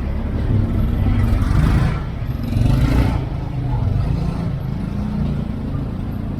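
Street traffic: a motor vehicle's engine running close by with a steady low hum, with two brief louder swells of noise about two and three seconds in.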